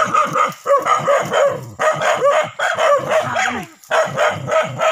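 Dog barking in quick runs of about three barks a second, with short breaks between runs. It is the steady barking of a dog holding a cornered monitor lizard at bay.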